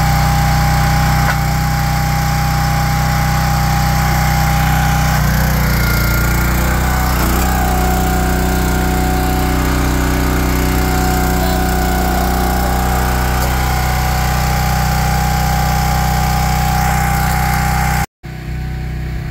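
Lumber Jack log splitter's small gasoline engine running steadily at working speed. Its note shifts briefly about five seconds in, and the sound drops out for a moment near the end.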